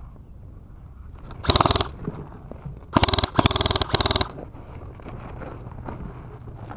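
Airsoft rifle firing close to the microphone: a short burst about a second and a half in, then three quick bursts back to back from about three seconds in. Each burst is a fast run of shots.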